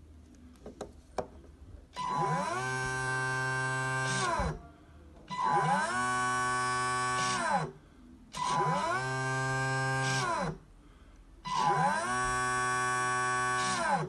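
Lake Reaper bait boat's electric propeller motors run up, hold steady and wind down, four times over, each run lasting about two seconds, after a few light clicks. The handset's mixing setting is switched on, so throttle and rudder work together off the one stick.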